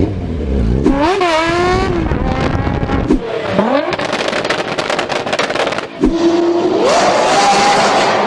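Loud vehicle exhausts revving hard, the engine pitch jumping up and falling back in quick blips. The sound switches abruptly to a different engine about three seconds in and again about six seconds in, the last one climbing steadily in pitch as it accelerates.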